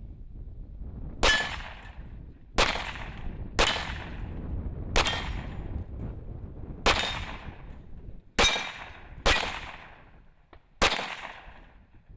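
Rifle shots, eight sharp reports about one to two seconds apart, each trailing off in a rolling echo over a low background rumble.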